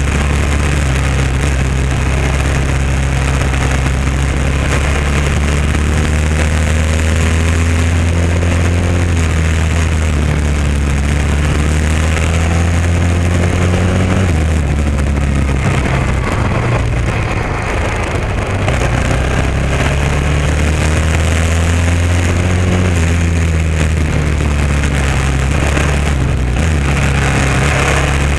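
Honda XR650R's single-cylinder four-stroke engine running while the bike is ridden along the road, heard close up from a camera mounted on the bike. The engine note is steady at first, falls away a little past halfway, then climbs again.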